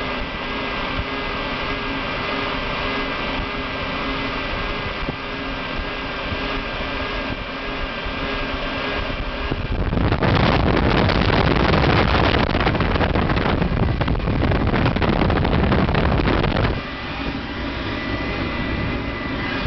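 Hot-air plastic welder's blower running with a steady hiss and a thin high whine. From about ten seconds in to about seventeen seconds, a much louder rough rushing noise, buffeting on the microphone, covers it.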